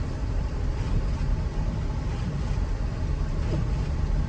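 Car driving through deep unplowed snow, heard from inside the cabin: a steady low rumble of engine and road noise.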